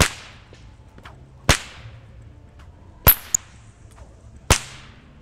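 A whip being cracked: four sharp cracks about a second and a half apart, the third followed closely by a smaller crack.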